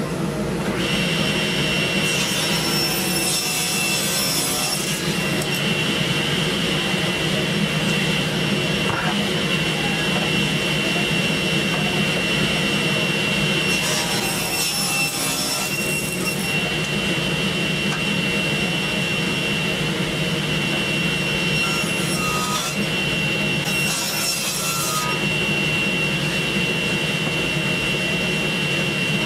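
Table saw running steadily, with several spells of the blade ripping thin strips off a cherry board.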